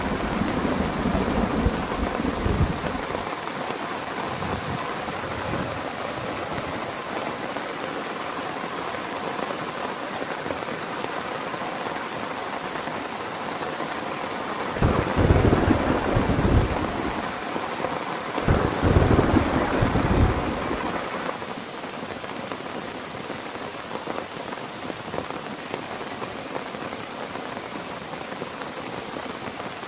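Heavy rain falling steadily, with thunder rumbling: one roll dying away over the first few seconds, then two more deep rumbles close together about halfway through.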